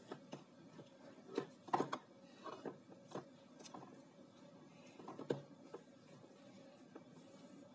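Faint, scattered clicks and knocks of a cable with a metal connector plug being handled against a prop bomb's plastic case, a few seconds apart, over a faint steady hum.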